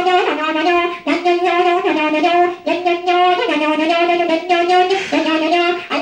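Background music: a wind instrument plays a melody of held notes, with short breaks between them.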